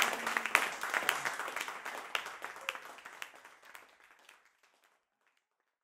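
Small audience applauding, the clapping fading away over about four seconds.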